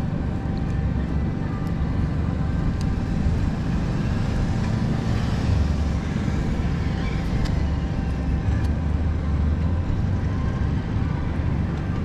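Road traffic: a steady low rumble of vehicles, with one passing and swelling around the middle.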